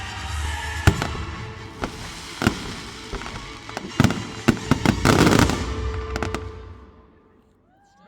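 Fireworks going off: a run of sharp bangs with crackling, building to a dense crackle about five seconds in, then dying away near the end.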